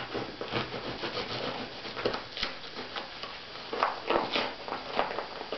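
A knife cutting and scraping through the wrapping of a parcel, in irregular rubbing strokes.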